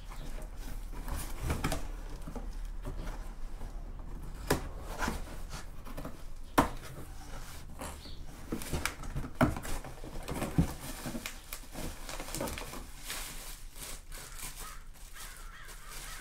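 Cardboard box, crumpled packing paper and a plastic bag rustling and crinkling as parts are lifted out, with scattered sharp knocks and clicks of boxes and parts being handled.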